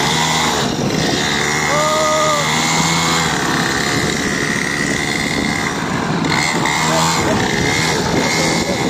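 A 49cc petrol mini dirt bike engine running as it is ridden along. Its revs swell and fall back briefly about two seconds in and again around seven seconds.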